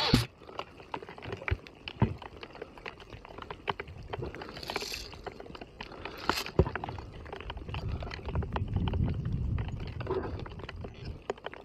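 Hailstones pelting down, an irregular patter of sharp little clicks and ticks on the player's gear and the stony ground, with a few louder knocks. A low rumble swells from about eight seconds in.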